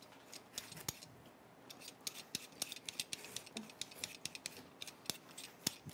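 Kitchen knife cutting into a whole watermelon: a series of short, sharp cracks and clicks from the rind, irregular and coming several times a second.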